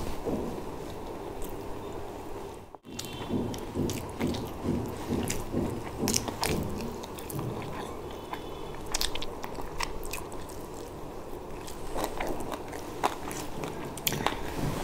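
Close-miked mouth sounds of someone chewing chicken biryani, wet chews at about three a second, with scattered small clicks.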